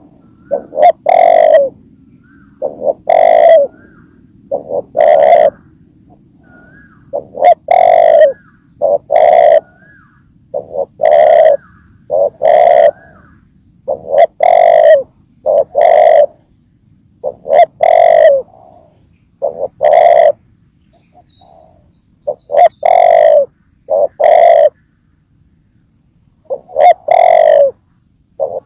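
A dove cooing: short coos repeated in twos and threes, with brief pauses between the groups.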